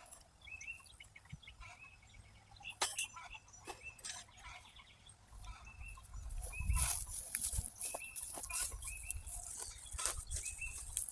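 Backyard chickens clucking with short, repeated calls, alongside rustling and small clicks that are loudest about six to seven seconds in.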